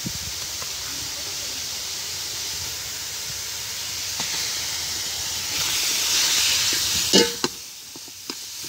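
Sliced onions hissing and sizzling in a hot metal pot. The hiss swells about five to six seconds in as ghee is spooned in, and a few sharp clinks of a metal spoon on the pot follow near the end as stirring starts.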